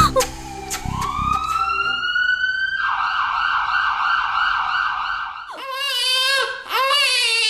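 An emergency vehicle's siren rises in pitch, then warbles rapidly and fades out about five and a half seconds in. A baby then starts crying.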